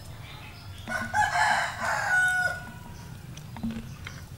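A rooster crows once, starting about a second in and lasting about a second and a half.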